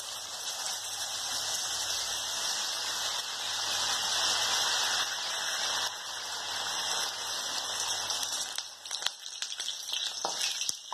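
Batter-coated pappadam (pappada vada) deep-frying in hot oil in a kadai, a steady dense sizzle. Near the end a few sharp clicks come as a slotted metal spatula scrapes the pan and lifts it.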